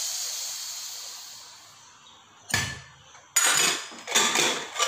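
Steam hissing out of a pressure cooker as its pressure is released, fading away over about two seconds. Then several sharp metal clanks as the aluminium cooker is handled.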